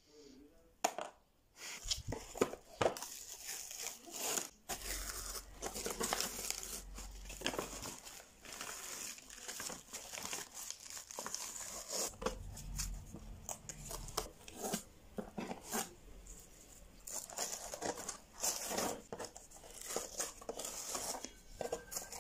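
Thin paper crinkling and tearing as it is peeled off a glued board, with irregular crackles and the rustle of hands rubbing over the paper surface.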